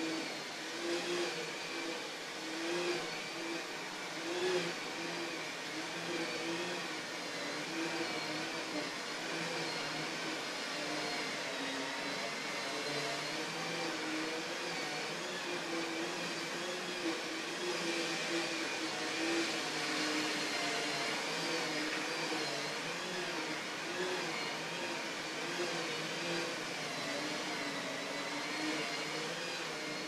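Motor of a carpet-cleaning machine running steadily, with a whine that wavers slightly in pitch.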